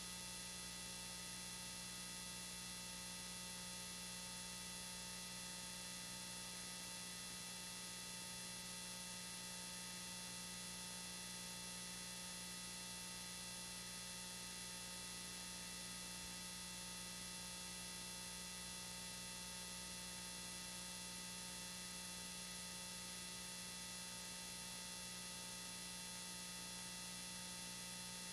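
Steady hiss and electrical hum with several constant whining tones, unchanging throughout and with no other sounds: noise on the home videotape's audio track, which has sound problems.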